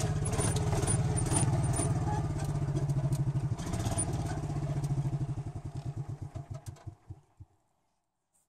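Small gasoline golf-cart engine running, then switched off: its firing slows and dies away about seven seconds in.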